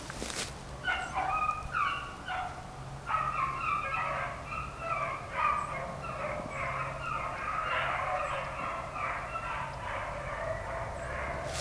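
A pack of beagles baying together, many overlapping voices, while running a rabbit in full chase on its scent line. The baying starts about a second in and carries on with a short break.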